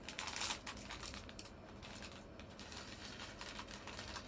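Tiny LEGO plastic pieces clicking and clattering against each other and the table as they are handled, a quick run of light clicks that is busiest in the first second.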